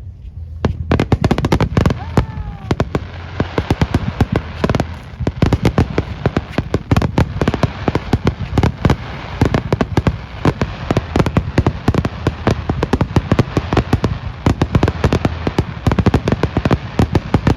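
Fireworks display: a dense, loud barrage of sharp bangs and cracks, many a second, starting about a second in and keeping up without a break.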